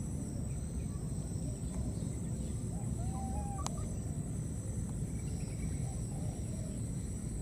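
Outdoor ambience: steady high-pitched insect trilling over a low rumble, with a short chirping call about three seconds in and a single sharp click just after it.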